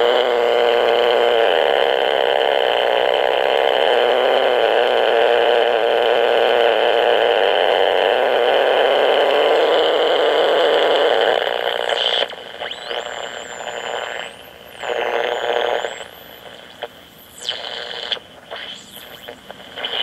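AM radio picking up interference from a nearby blocking oscillator circuit. For the first half there is a loud, dense buzzing hiss. About twelve seconds in it drops and breaks into whistles that sweep up and down in pitch and cut in and out as the oscillator's potentiometer is turned.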